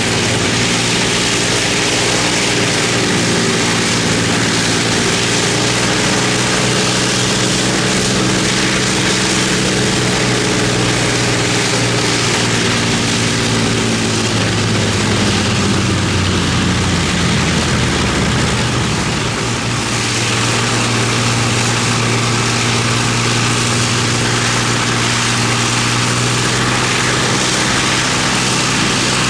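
Avro Lancaster's Rolls-Royce Merlin V12 engines running on the ground, propellers turning, in a steady, even drone. About halfway through the engine note wavers and shifts, then settles back to a steady run.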